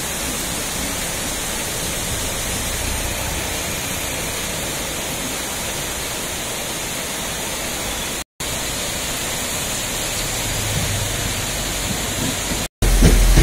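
Steady rushing of a rain-swollen, muddy river in spate, its fast, churning white water giving an even noise. The noise cuts out briefly twice, and a deeper rumble comes in near the end.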